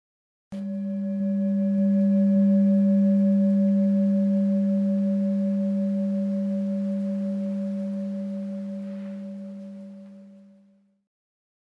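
Tibetan singing bowl struck once, ringing with a strong low tone and a higher, slightly pulsing overtone, fading out over about ten seconds.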